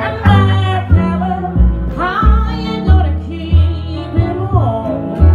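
Live small-group jazz: a woman singing over plucked upright bass and archtop electric guitar, the bass notes changing about every half second.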